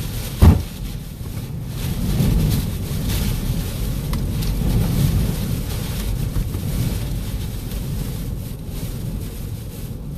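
Hurricane-force wind and driving rain buffeting a vehicle, heard from inside the cab as a heavy low rumble that swells and eases, with one sharp knock about half a second in.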